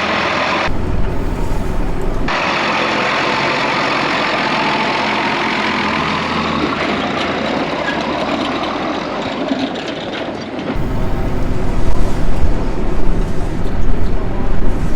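Farm vehicle engine running under way, heard from inside the cab as a steady drone. About 11 s in the sound changes to a louder, more uneven low rumble.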